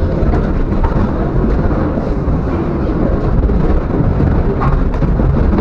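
Heavy low rumble of a tram running along street track, heard from inside the tram, with a couple of sharp clacks near the end as the wheels pass over rail points.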